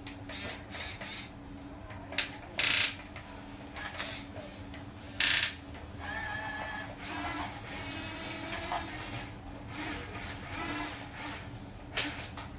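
Small electric gear motors of an RC excavator whining as the boom, arm and bucket move and the upper body swings. A few short, loud rasping bursts come between them.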